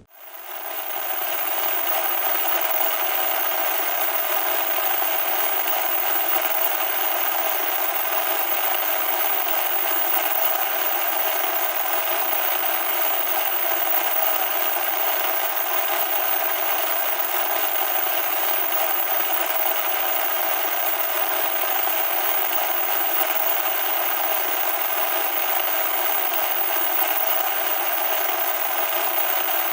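Loud, steady static noise: an even rasping hiss with no bass, fading in over about the first second and then holding unchanged.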